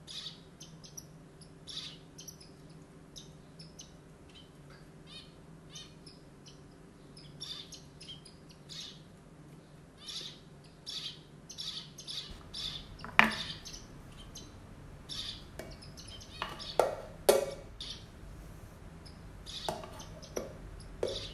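Small birds chirping in short, repeated high notes, with a few sharp knocks in the second half over a low steady hum.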